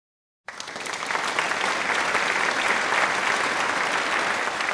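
A large crowd applauding, starting abruptly about half a second in.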